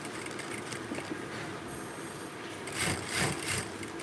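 Sewing machine running steadily at speed, stitching a wig, with a faint steady hum under the fast needle patter and a couple of louder spells about three seconds in.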